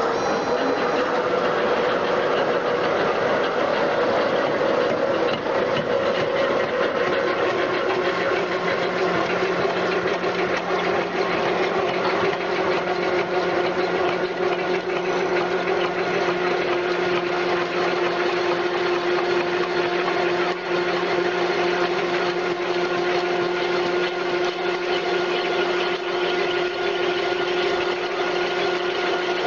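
CNC vertical hydraulic lathe running and machining a steel end-plate flange: steady machine noise with a constant whine, and a lower hum joining about eight seconds in.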